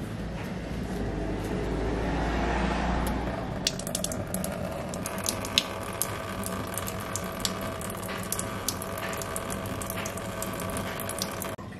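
Engine coolant draining in a thin stream and splashing into a shallow drain pan, louder in the first few seconds.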